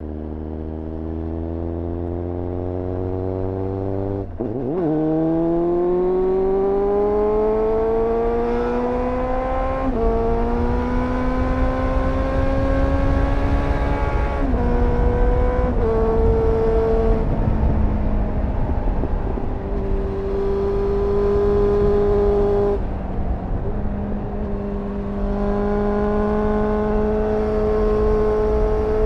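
2001 Suzuki GSF 600 Bandit's inline-four engine through a GPR Furore Nero aftermarket exhaust, heard onboard while riding. The revs climb and drop sharply at each upshift, about four times in the first fifteen seconds, then hold nearly steady at a cruise, with a dip around twenty-three seconds in.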